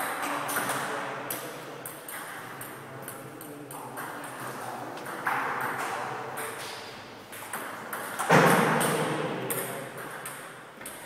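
Table tennis balls clicking off bats and tables in a quick, irregular patter during rallies, echoing in a gym hall. A loud, broad burst of noise comes about eight seconds in, with voices faintly behind.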